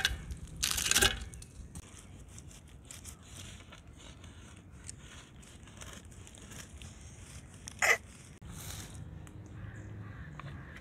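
Knife scraping and cutting through the crisp crust of a large round baked bread, with a loud scrape about a second in, faint crunching crackles after it, and a sharp knock near the end.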